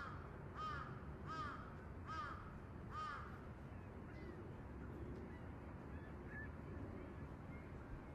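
A crow cawing five times in quick succession, about one call every three-quarters of a second, then falling quiet over a faint, steady background hum.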